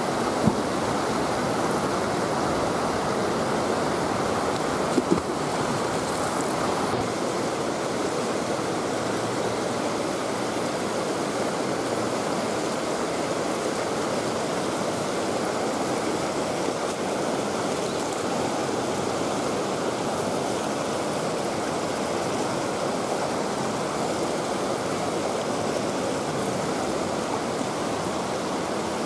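Steady rush of water spilling over a dam weir, even and unbroken, with a sharp knock about half a second in and another around five seconds in.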